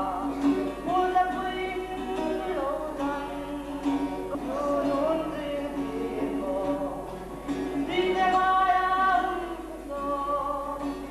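A man singing a slow song into a microphone, accompanying himself on an acoustic guitar, with long held notes; the loudest phrase comes about eight seconds in.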